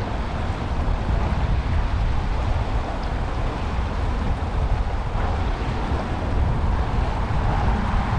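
Steady rushing noise of wind buffeting the microphone over water pouring down a concrete spillway into a canal, with a heavy low rumble and no distinct events.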